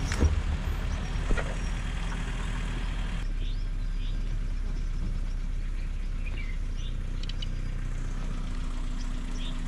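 Safari vehicle's engine running steadily at low speed or idle, a constant low rumble, with a few short bird chirps over it in the second half.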